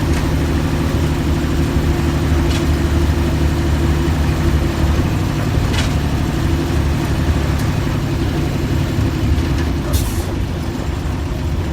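Mercedes-Benz OF-1315 bus's diesel engine running steadily, with a few faint clicks over the hum and a slight drop in level about ten seconds in.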